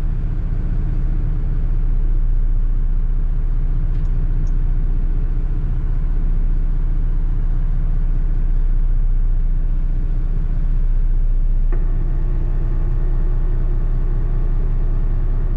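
Heavy-duty rotator tow truck's diesel engine running, heard from inside its cab as a steady low rumble. Near the end a higher steady hum joins in.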